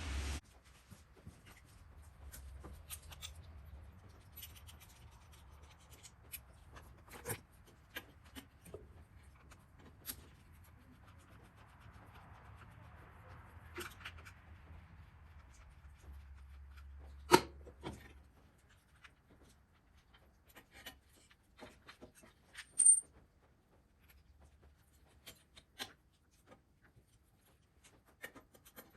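Scattered clicks, light knocks and rubbing from hand work on motorcycle handlebar parts (clip-ons, grips and levers), with one louder knock past the middle and a short high squeak later on. A faint low hum comes and goes.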